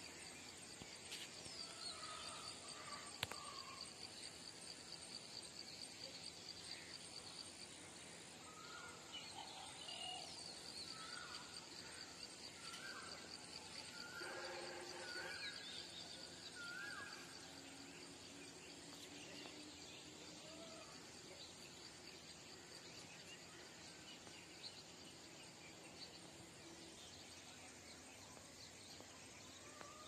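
Faint morning birdsong: scattered short bird calls, busiest in the first half, over a steady high-pitched insect drone. About halfway through comes a louder, fuller call.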